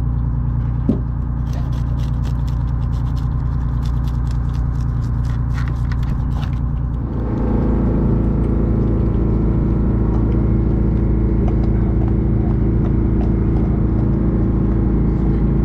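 Boat engine running steadily, stepping up louder with more throttle about seven seconds in. Over the first half come rapid scratchy clicks of a ring fish scaler scraping scales off a fish.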